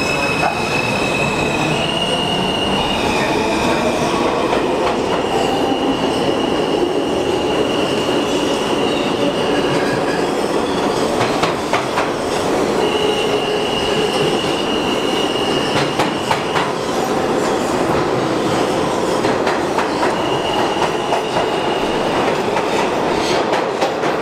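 Kawasaki R211A subway train running, heard between the cars: a steady rumble of wheels on rail with a high wheel squeal that comes and goes in several long stretches, and a few sharp rail-joint clacks near the middle.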